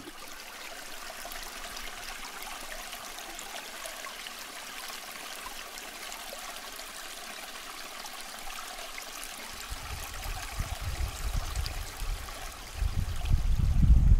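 Small creek running over rocks, a steady rushing trickle. About ten seconds in, wind starts buffeting the microphone with low gusty rumbles that grow louder near the end.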